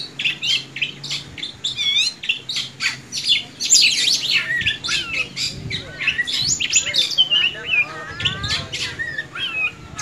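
Caged Oriental magpie-robin (kacer) singing a fast, continuous stream of varied chirps, whistles and rising and falling notes, with some lower rasping notes near the end. Its song is the kind that keepers call 'mbagong' and find annoying.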